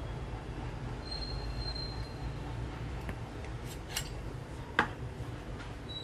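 A 1967 Zippo lighter's insert sliding out of its metal case: a thin, high metal-on-metal squeal, then a few light metallic clicks and one sharp click about three-quarters of the way through, over a steady low hum.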